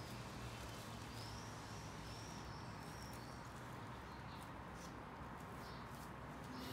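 Steady low hum and background hiss of room ambience, with faint high bird chirps in the first half and a few soft clicks later on.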